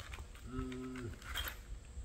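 A man's short hum at one held pitch, lasting about half a second partway through. A few faint clicks from handling a metal hole saw follow.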